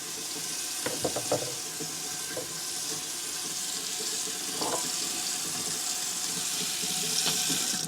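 Kitchen faucet running water into the sink, with a few knocks and clinks, then shut off sharply at the end.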